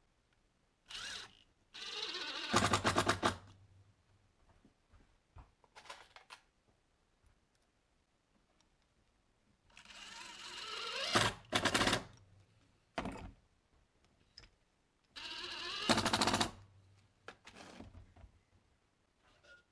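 Cordless drill/driver driving screws into pine blocks in three main runs, each ending in a rapid rattling as the screw seats, with a few short blips of the motor between them.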